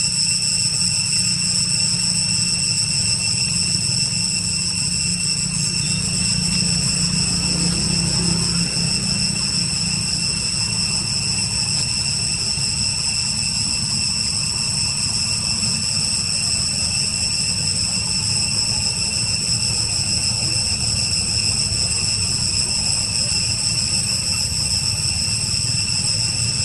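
Steady background drone: a constant high-pitched whine in several tones over a low rumble, unchanging throughout.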